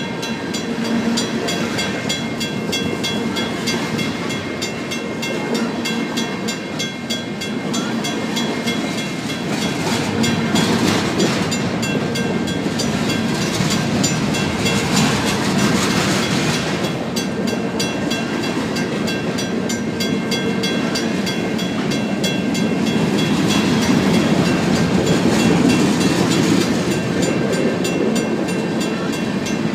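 Freight cars of a BNSF local train (tank cars and covered hoppers) rolling past at close range, a steady clatter and rumble of wheels on the rails. A mechanical crossing bell rings steadily over it.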